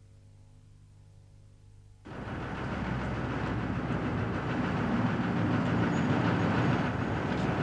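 A faint low hum, then about two seconds in the sudden, loud clatter of a running train that grows louder, with faint high squeals of the wheels later on.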